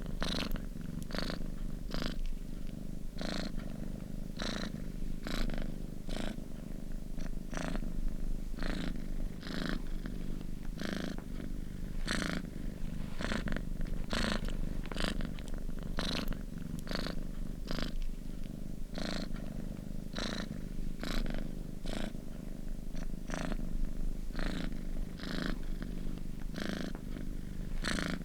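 Domestic cat purring close up, a steady low rumble that pulses in a regular rhythm a little under twice a second as it breathes in and out.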